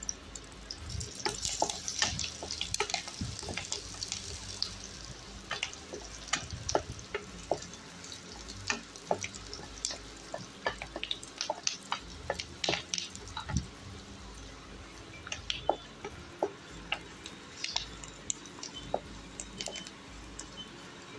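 Curry leaves and chopped garlic frying in hot ghee in a kadhai: a hiss of sizzling strongest in the first couple of seconds, then scattered sharp crackles and pops, with a spatula scraping and tapping the pan as it stirs.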